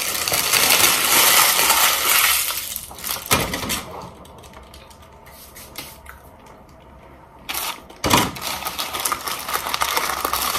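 A paper fast-food taco wrapper being crumpled and crinkled, dense and loud for the first three seconds. Scattered small clicks follow, then more crinkling from about eight seconds in.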